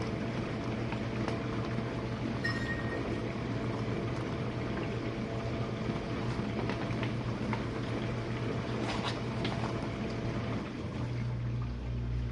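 Jenn-Air dishwasher running a wash cycle: water spraying and sloshing inside the tub over the steady hum of its pump motor, with a few small clicks. Near the end the hum shifts to a deeper, steadier tone as the cycle switches over to draining.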